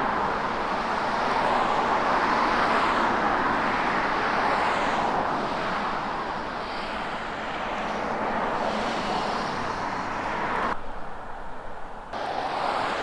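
Steady road traffic noise, vehicles passing in swells every second or two, with the higher part of the noise briefly cutting out about eleven seconds in.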